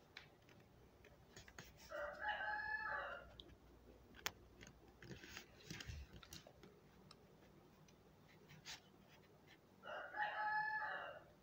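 A rooster crowing twice, each crow about a second and a half long and some eight seconds apart, with faint scattered clicks in between.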